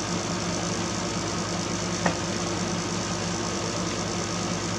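Steady machine hum, with one faint click about two seconds in.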